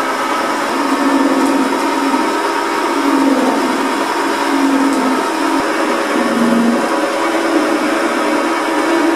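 Wood lathe running while a hand-held turning gouge cuts a spinning brass rod down to a smaller diameter, a steady noise of motor and cut with a tone that wavers in pitch and dips briefly about six and a half seconds in.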